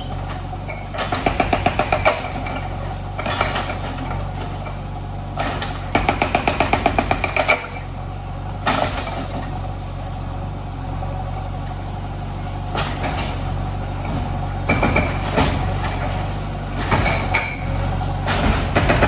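JCB backhoe loader's diesel engine running steadily, broken several times by bursts a second or two long of rapid, evenly spaced rattling knocks as the machine works in house demolition.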